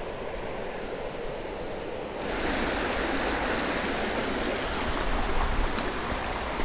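Steady rush of river water running over rocky rapids, louder from about two seconds in.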